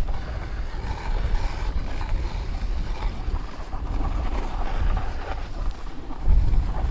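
Wind buffeting the microphone in blizzard conditions: a low, uneven rumble with a steady hiss over it.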